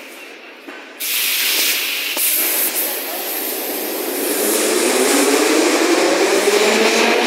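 Metro train at the platform: a sudden loud hiss of compressed air about a second in, then from about halfway through the electric traction motors whine, rising steadily in pitch as the train starts to pull away.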